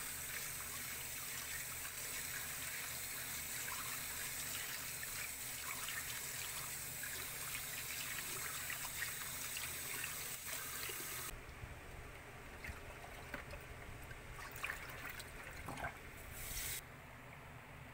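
Tap water running into a plastic colander of mung beans while a hand swishes and rubs them in the water. The water stops suddenly about eleven seconds in, leaving scattered light clicks and rattles of the wet beans and colander.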